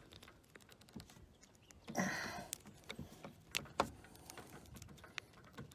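Hand pop-rivet gun being worked on an aluminium boom end cap: a string of sharp metallic clicks with a short scrape about two seconds in.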